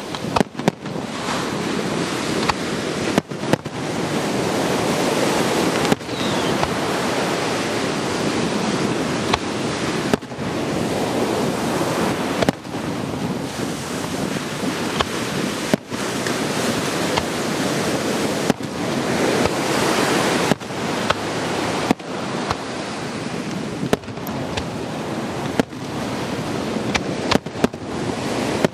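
Fireworks display: aerial shells bursting with sudden bangs every few seconds, over a steady loud rushing of wind on the microphone and surf.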